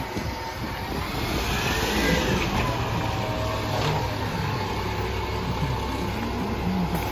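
Side-loader rubbish truck's diesel engine pulling away and driving past, its pitch rising as it gathers speed about two seconds in, then running evenly.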